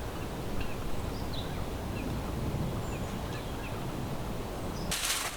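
Strong wind rushing and buffeting, with faint short bird chirps scattered through it. A sudden loud rush of noise comes in near the end.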